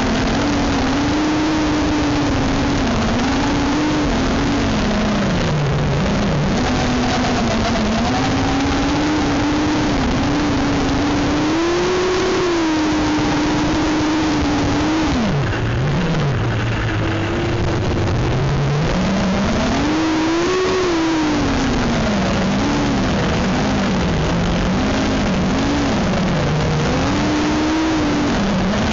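FPV racing quadcopter's brushless motors and propellers whining, the pitch gliding up and down as the throttle changes, over a constant rushing hiss of propeller wash and air. About halfway through the pitch drops low for a couple of seconds, then climbs sharply again.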